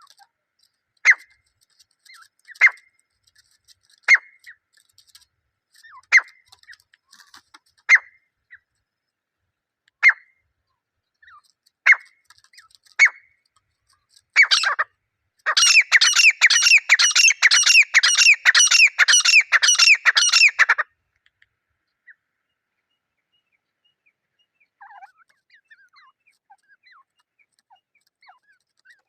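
Grey francolin (desi teetar) calling: single sharp call notes about every two seconds, then a loud fast run of about four calls a second for some five seconds, the pair's calling series.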